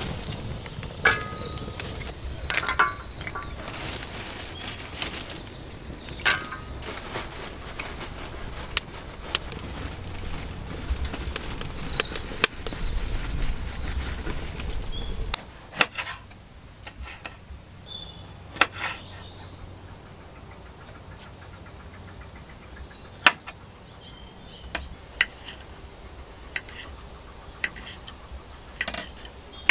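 Birds chirping throughout. For the first half a wood fire burns in a metal stove with a low rumble and crackling. About halfway through this gives way to a quieter stretch with occasional sharp clicks of a knife cutting tomatoes on a plate.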